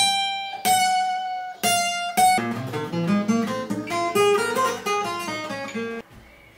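Fender CD-60SCE steel-string acoustic guitar played fingerstyle. Four ringing high single notes are plucked, then a quicker melodic passage with bass notes underneath, which stops abruptly about six seconds in.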